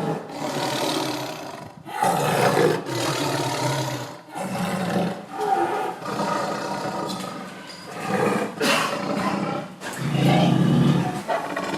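Tiger growling and roaring in a string of harsh, rasping calls, each a second or two long with short breaks between them; the loudest come about two seconds in and near the end.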